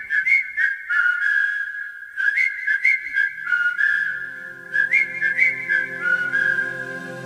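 Instrumental interlude of a Hindi film song: a whistled melody with little slides between notes, alone at first, then joined by soft sustained backing chords about three seconds in.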